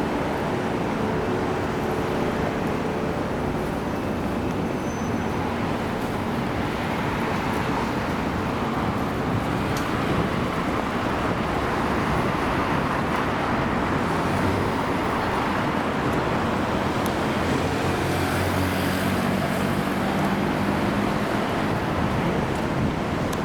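Steady city street traffic: vehicles passing in a continuous wash of road noise, with a vehicle's engine hum more prominent near the end.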